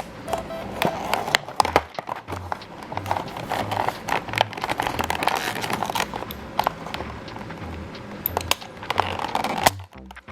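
Background music with a steady, repeating bass beat, over crinkling and clicking of plastic toy packaging being opened.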